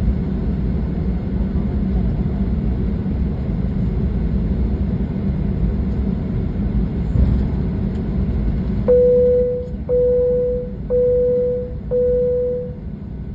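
Steady low rumble of a Boeing 737-800's CFM56 engines and airframe heard inside the cabin while taxiing. About nine seconds in, the cabin chime dings four times about a second apart, each ding fading out, the signal just ahead of the takeoff announcement.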